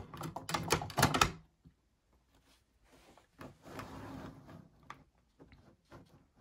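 Clicks and clattering knocks from a heavy SD70MAC model locomotive being handled and shifted on its track, a quick run of knocks in the first second or so, then a softer rustle and a few scattered clicks.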